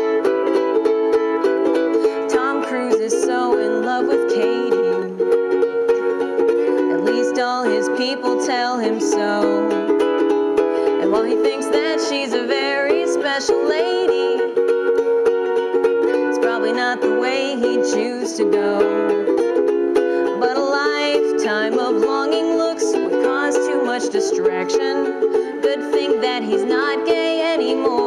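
Solo ukulele strummed in steady, repeating chords: the instrumental introduction to a song, before the singing begins.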